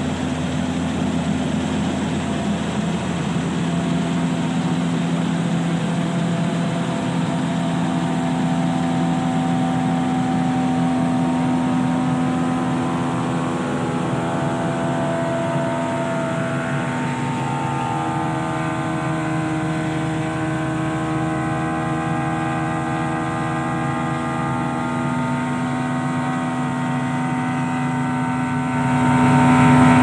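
New Holland wheat combine harvester running steadily: a constant engine and machinery drone with several held tones, some of which shift in pitch about halfway through. It swells louder near the end.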